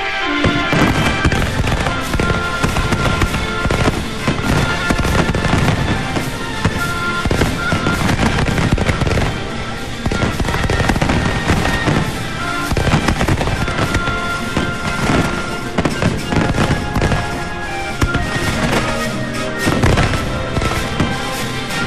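A fast, dense barrage of fireworks and firecrackers bangs and crackles without pause, with music playing underneath.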